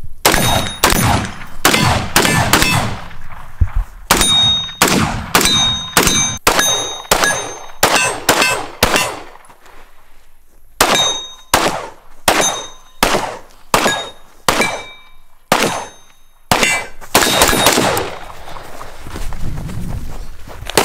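A string of gunshots, about two a second, with hit steel targets ringing out after many of them. The shooting breaks off briefly in the middle, and there is a quick run of shots near the end.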